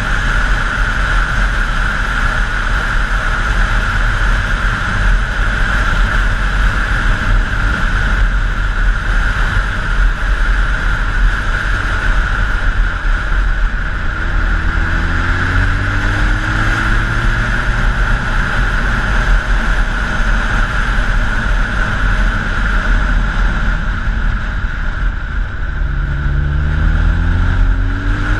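Honda CBR1000F inline-four motorcycle engine running at road speed, heard from a helmet-side camera under a steady rush of wind noise. The engine note climbs as the bike accelerates about halfway through, and again near the end.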